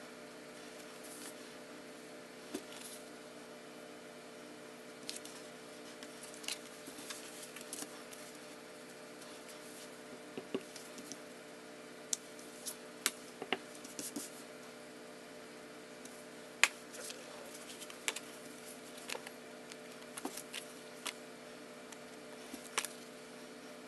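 Scattered light clicks and taps of stamping tools, a clear acrylic stamp block and sponges, being picked up and set down on a craft desk, the sharpest click about two thirds of the way in. Under them runs a steady low hum.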